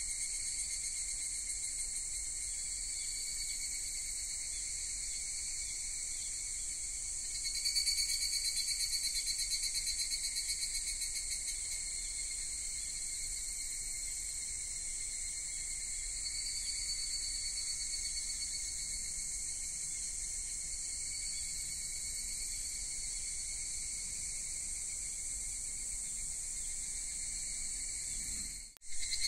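Steady high-pitched chorus of insects chirring, with a fine fast pulse. It swells a little about a quarter of the way in and cuts out briefly near the end.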